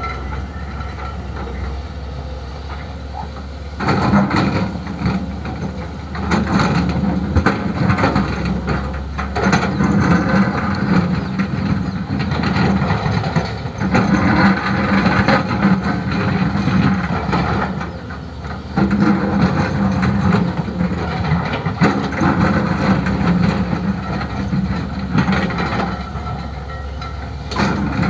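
Hyundai HX220S hydraulic excavator working: its diesel engine runs steadily, then about four seconds in it rises under load in repeated spells of a few seconds each as the machine digs and swings.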